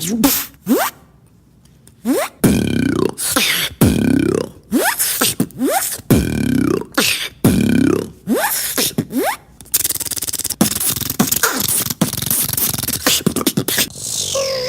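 A beatboxer making sound effects with the mouth: short bursts of swooping, pitch-gliding vocal sweeps after a brief pause, then from about ten seconds in a denser rasping stretch with rapid clicks.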